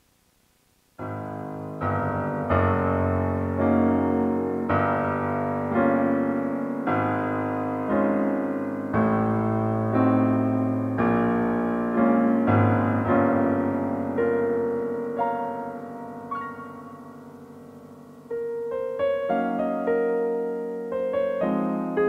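Slow solo piano music: near silence for about a second, then a gentle melody over chords, with notes struck about once a second.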